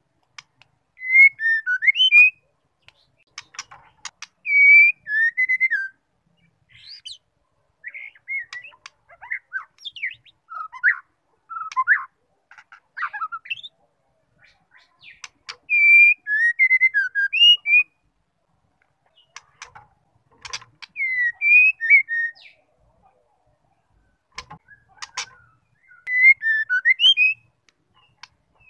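Female white-rumped shama singing: about seven short phrases of quick, clear whistled notes, each a second or two long, with pauses of a few seconds between them and a few sharp clicks in the gaps.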